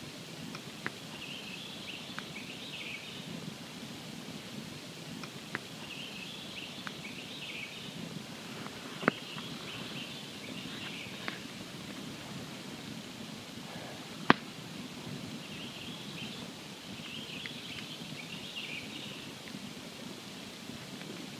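Campfire burning with a steady low rush and irregular sharp pops and cracks of burning wood, the loudest two about nine and fourteen seconds in. Faint high-pitched bursts come and go in the background.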